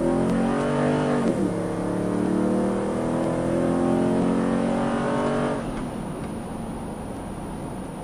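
2004 Nissan Titan's V8 through JBA long-tube headers and an aftermarket cat-back exhaust, heard from inside the cab while accelerating. The exhaust note climbs, drops at an upshift about a second and a half in, and climbs again. A little past two-thirds through it falls away to a quieter steady road drone.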